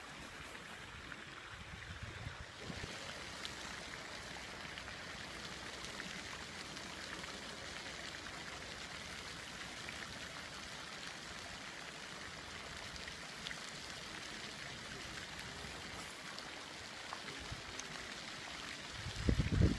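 Steady splashing hiss of a pond fountain spraying water into the pond. A low rumbling noise comes in near the end.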